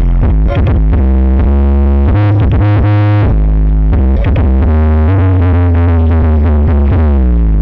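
Loud electronic music with heavy bass and keyboard-like synth chords; over the last couple of seconds a synth line slides steadily downward in pitch.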